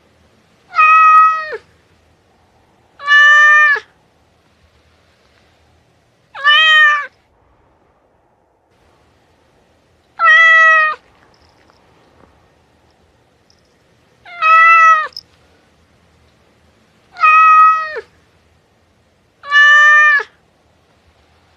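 A domestic cat meowing: seven similar meows a few seconds apart, each under a second long, holding its pitch and dropping at the end.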